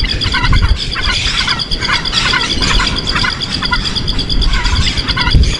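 Small birds chirping in quick, short repeated bursts over a steady, rapidly pulsing high note, with a low rumble underneath.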